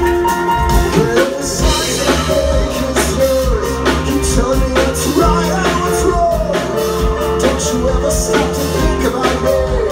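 Live rock band playing: a man sings over electric guitar, keyboard and drums, with the vocal line coming in about a second in.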